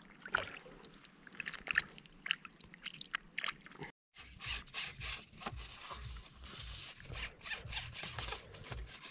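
Handling noise: hands and sleeves scraping and rubbing against a fishing rod close to the microphone, with scattered short clicks. The sound breaks off in a brief gap about four seconds in.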